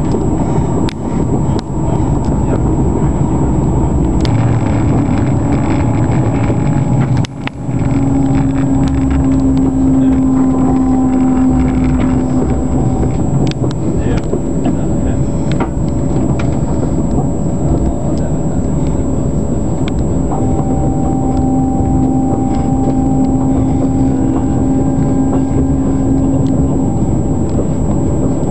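Passenger train running at speed, heard from inside the carriage: a steady rumble of wheels on rails, with a low hum that comes in twice and a brief drop in the noise about seven seconds in.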